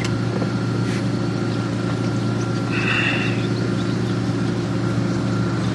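Steady low mechanical hum, like an engine or motor running at an even idle, with a brief high sound about three seconds in.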